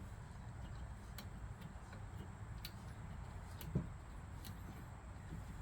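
A few faint, scattered clicks and taps, about a second apart, from wire strippers gripping and working at a plastic tip on a wheel-truing stand's arm. The sharpest click comes a little past halfway, over a low background hum.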